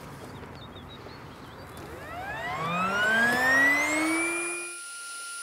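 A motor winding up, its whine rising steadily in pitch for about two and a half seconds over a rushing noise. Both stop abruptly near the end, leaving a thin steady high tone.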